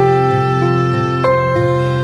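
Soft, slow background music: sustained instrumental notes changing every second or so over a held low tone.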